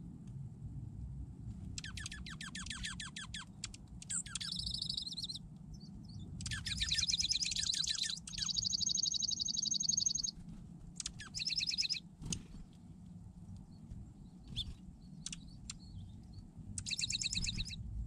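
Small songbirds singing a series of rapid trills, each one to two seconds long, with a few short single chirps in between.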